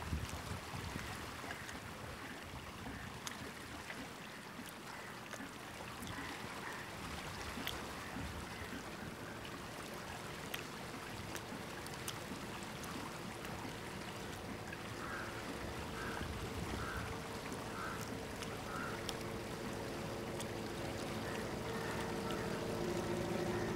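Quiet waterside ambience of calm backwater: a soft, even wash of water with scattered faint ticks, and a bird calling about five times in a row halfway through. A low steady tone fades in over the second half.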